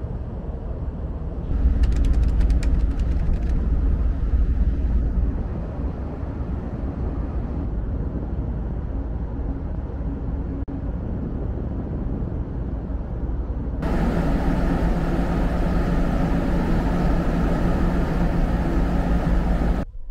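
Wind buffeting the microphone on a car ferry's open deck over the low rumble of the ship's machinery, with a crackly patch a couple of seconds in. About 14 s in it gives way to a louder, steady machinery hum with several held tones, which cuts off suddenly near the end.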